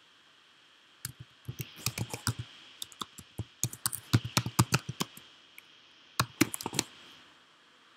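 Typing on a computer keyboard: quick runs of key clicks with short pauses between them, and a last brief flurry about six seconds in.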